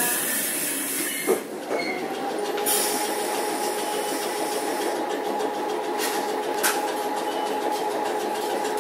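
Randen Mobo 21 tram heard from inside the car as it runs: rolling noise with a steady hum of two held tones. There is a thump about a second in and a couple of faint clicks later.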